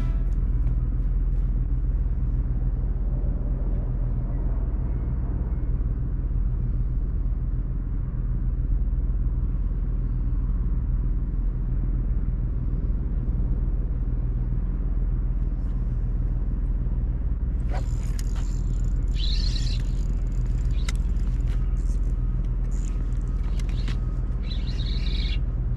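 Steady low rumble of wind buffeting the microphone. In the last several seconds there are sharp high-pitched clicks and short shrill sounds.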